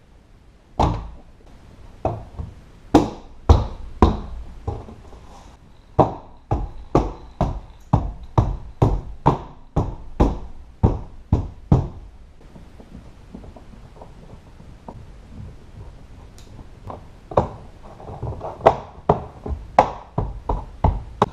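Repeated thunks and knocks of a hand striking a Honda Odyssey's plastic front door trim panel to snap its retaining clips into the door's holes, about two strikes a second, with a quieter gap midway before another run near the end.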